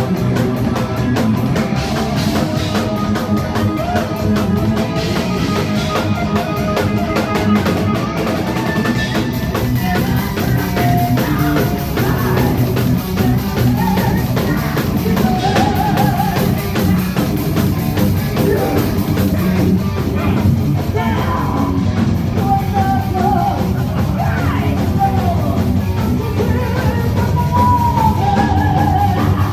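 Live heavy metal band playing loud: distorted electric guitar, bass guitar and drum kit. From about ten seconds in, a higher lead line slides up and down in pitch over the band.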